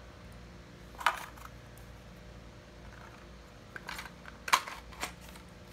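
A few sharp clicks and clinks from a telescopic fishing rod being handled: its metal-ringed sections knocking together and the rubber end cap being fitted over them. There is one loud click about a second in, then a cluster of clinks near the end, the loudest about four and a half seconds in.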